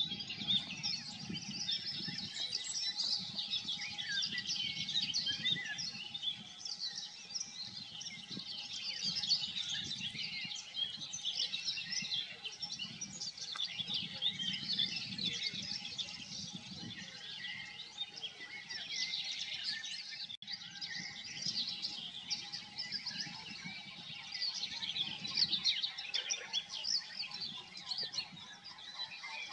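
A dense chorus of many songbirds singing from the woodland, overlapping chirps and trills throughout, over a faint low background rumble. The sound cuts out for an instant about two-thirds of the way through.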